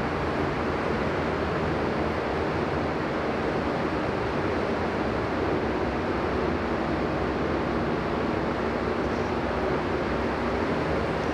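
Paint spray booth's ventilation fans running: a steady rush of moving air with a faint hum.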